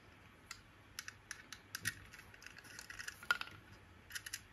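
A screwdriver turning a screw terminal on a heat-bed relay to clamp a wire. A run of small, irregular metal-and-plastic clicks, with one sharper click and a brief ring a little past the middle.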